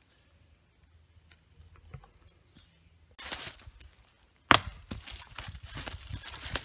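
A homemade large knife blade strikes wood once with a sharp crack, about four and a half seconds in, after a brief rustle of dry leaves. Footsteps then crunch through dry leaf litter.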